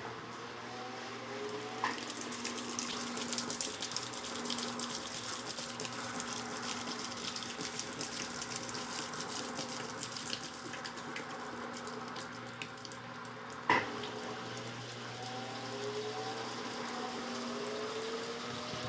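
Electrolux LTC15 top-load washing machine starting its spin: the drain pump hums steadily as water rushes out, over short rising whines. There is a faint click about two seconds in and a louder knock near the three-quarter mark.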